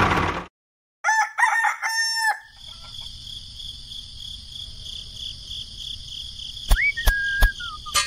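A rooster crowing once, a drawn-out crow of about a second and a half. After it comes a faint, steady high-pitched hum with a soft pulse, and near the end a few sharp clicks and a short whistling glide.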